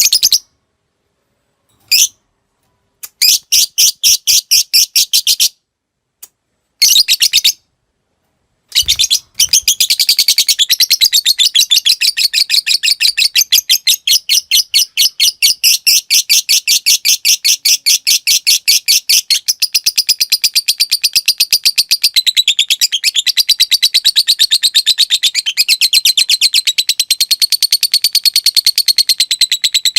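Lovebird singing: a couple of short sharp chirps, then brief bursts of rapid clicking trill, then from about nine seconds one long unbroken rapid chattering trill, the long 'ngekek' that fighter lovebirds are trained for.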